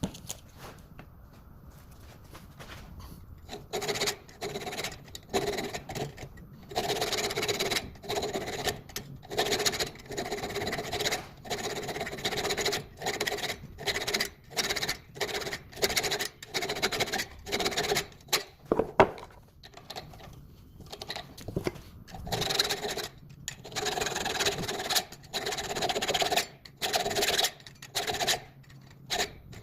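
Hand saw blade rubbed back and forth over a bolt's threads to chase and clean up damaged threads, in quick strokes of about two a second with a ringing tone in each stroke. The strokes start about four seconds in and break off briefly around two-thirds of the way through.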